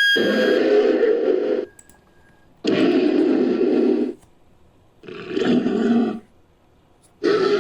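Fictional creature sound effect: a series of roaring calls edited from Anchiceratops and Megaloceros (giant deer) sound effects. Each call lasts about a second and a half, with about a second of quiet between them; one call is already under way at the start, and a fourth begins near the end.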